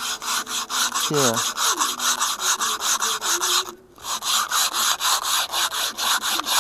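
Sandpaper held in the hand rubbing back and forth on paper-faced Dollar Tree foam in quick, even strokes, several a second, tapering a foam wing's trailing edge. There is a short break a little past halfway.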